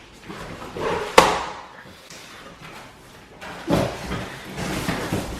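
One sharp knock about a second in, the loudest sound, then scraping and rustling from a little past the middle: boxes and packaging being handled.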